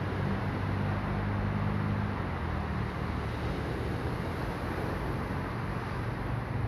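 A low engine hum that eases off about two seconds in, over a steady rushing noise.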